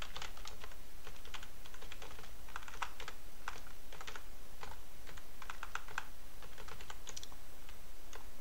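Computer keyboard being typed on: short, irregular bursts of keystroke clicks as shell commands are entered, over a low steady hum.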